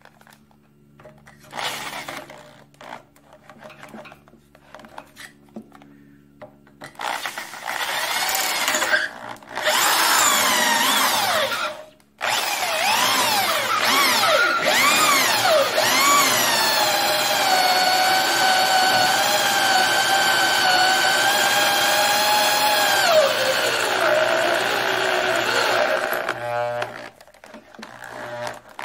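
Handheld rotary tool drilling out a broken-off steel fuel pump bolt in a McCormick-Deering Type M cast-iron engine block. After a few quieter seconds of short bursts, it runs with a loud high whine that wavers in pitch as the bit bites and eases, and cuts out briefly. It then holds steady and winds down, falling in pitch near the end.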